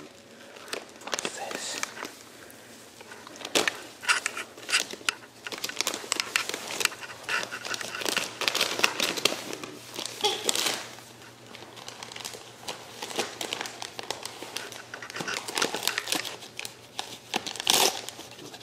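Gift-wrapping paper crinkling and rustling in irregular bursts as a wire fox terrier paws at and noses into a wrapped present.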